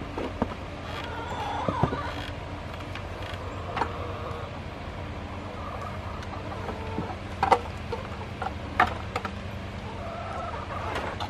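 Sharp knocks and clatters of a plastic water pan being set back in place at the base of a chicken coop, over a steady low hum, with hens clucking faintly near the start and again near the end.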